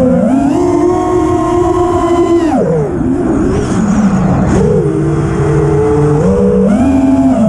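Small FPV quadcopter's electric motors and propellers whining, the pitch following the throttle. It jumps up right away and holds high for about two seconds, drops sharply about two and a half seconds in, then climbs back in steps near the end.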